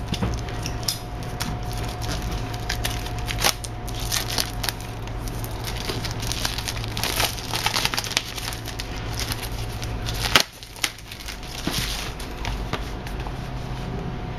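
Scissors snipping through the plastic shrink wrap on a cardboard box, then the thin film crinkling and crackling as it is peeled off by hand. A sharp click comes about ten seconds in.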